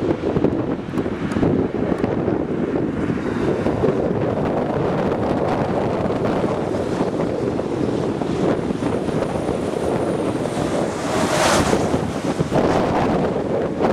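Strong wind buffeting the microphone: a loud, steady rushing noise, with a brighter, louder rush about eleven seconds in.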